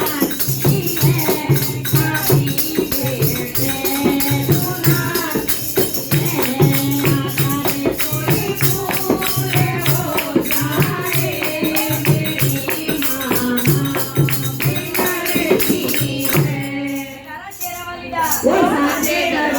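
Hindi devotional bhajan sung over a steady, evenly repeating percussion beat. The music breaks off about seventeen seconds in, and a voice follows near the end.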